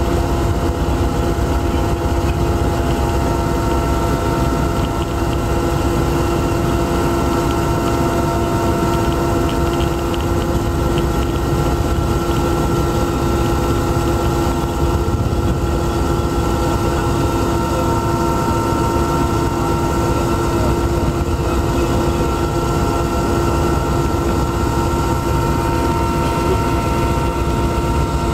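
Steady engine drone of an aircraft heard from inside the cabin, an even rumble with a few steady tones held throughout.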